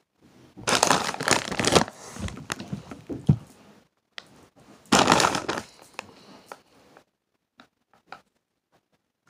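A foil bag of Takis crinkling as it is handled right against the microphone. There are two main bouts of rustling, one about a second in lasting a couple of seconds and one around five seconds in, followed by a few light crackles.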